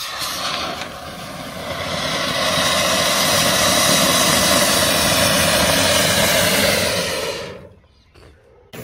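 Diwali anaar (flowerpot fountain firework) spraying sparks with a loud steady hiss that builds over the first couple of seconds and fades out about seven and a half seconds in. The hiss cuts back in abruptly just before the end.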